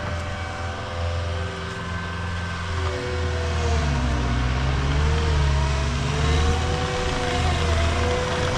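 Engine running steadily, its pitch wavering up and down and growing louder from about three seconds in.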